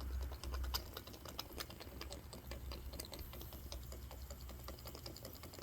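Small sterno-fired model steam engine running under its governor: a faint, fast, even ticking from its moving parts over a low hum.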